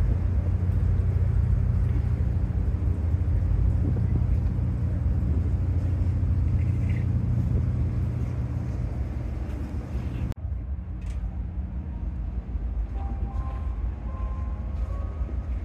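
Steady low engine rumble of a vehicle in motion. About ten seconds in it changes abruptly to a slightly quieter rumble with a few faint high tones over it.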